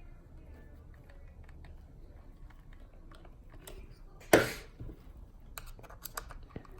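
Small clicks and taps of a screwdriver and parts being worked on an RC truck's motor mount while the spur and pinion gear mesh is set, with one sharp clack about four and a half seconds in and a few lighter clicks after it.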